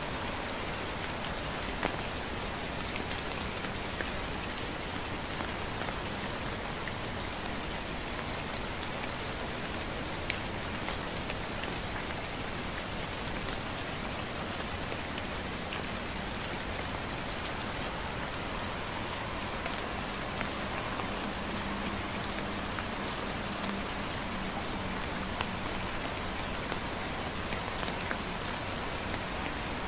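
Gentle rain falling steadily on wet pavement and vegetation, with scattered individual drops tapping sharply.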